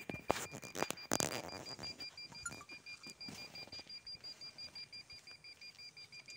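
Satellite signal meter beeping in a steady, rapid high-pitched pulse, the sound it makes while it still has a satellite signal. Handling knocks and rustles in the first second or so.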